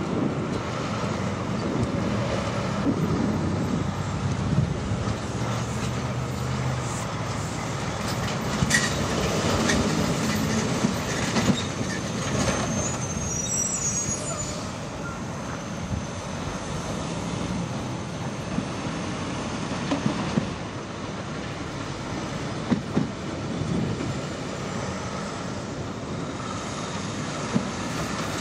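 Heavy trucks driving over a railroad grade crossing: diesel engines running under road noise, with several sharp knocks as wheels hit the rails.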